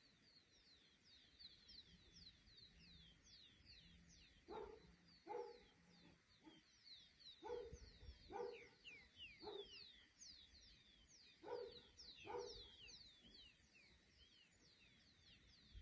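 Faint calls of wild animals: many high, quick downward chirps overlapping throughout, with shorter, lower calls coming in pairs and small groups every second or so.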